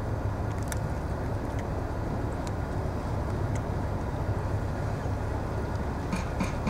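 A steady low rumble runs throughout. Faint crisp clicks of cats crunching dry cat food are scattered over it, with a quicker run of clicks near the end.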